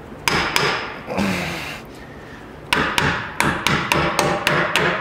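Hammer blows on a Chevy 1500 pickup's upper control arm, driving it into its frame mount: two strikes near the start, then a steady run of about three blows a second through the second half.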